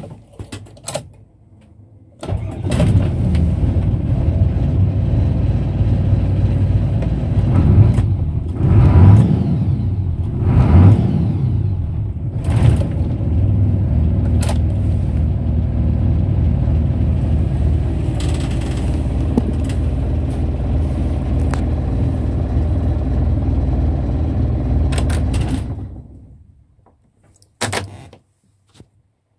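Old large truck's diesel engine starting about two seconds in, then idling with two brief revs. It keeps running with the key switched off and dies away near the end when the fuel-cut stop knob is pulled. A couple of sharp clicks follow.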